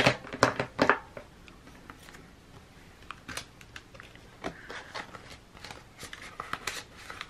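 Handling of a ring-bound budget binder: a cluster of sharp clicks and taps in the first second, then paper pages turning and plastic zip pockets rustling, with scattered light ticks.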